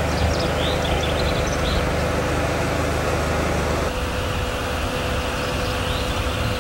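Steady outdoor background noise with a constant low hum, and a few short high chirps near the start and again near the end. The background changes abruptly about four seconds in, where the recording cuts to a new shot.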